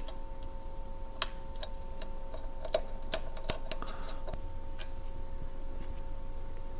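Light clicks and taps from a screwdriver and metal parts being handled while the clamp arch and feed plate of a Brother industrial sewing machine are taken off. About a dozen irregular clicks, mostly in the middle stretch, over a faint steady hum.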